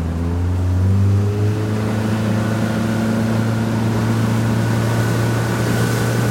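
Motorboat engine speeding up, its pitch rising over the first couple of seconds, then running steadily at cruising speed.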